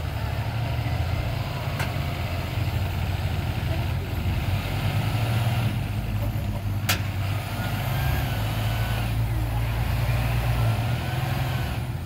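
Heavy vehicle engines running steadily under load as a pickup truck tows a stuck school bus out of deep snow on a strap, the bus's wheels spinning and throwing snow. Two sharp clicks come through, about two seconds in and again about seven seconds in.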